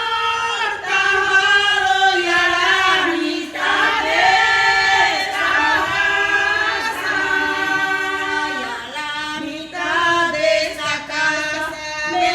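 A group of women singing a cappella in long, held and gliding notes: traditional cantadoras of Colombia's Pacific coast singing a funeral chant.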